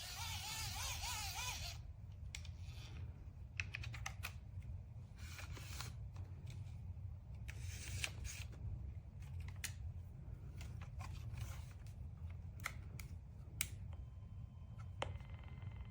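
Scattered small clicks and handling noises over a steady low hum, with a faint steady tone coming in near the end.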